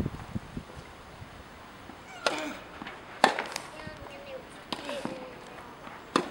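Tennis balls struck by rackets in a rally: a series of sharp, crisp pops at irregular gaps of one to two seconds. The loudest comes a little after three seconds in.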